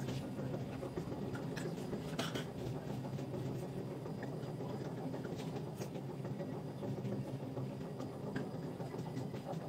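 Steady hum of a conveyor-belt ball-rolling machine running as it rolls rasgulla dough balls under a felt-covered roller, with a few light clicks.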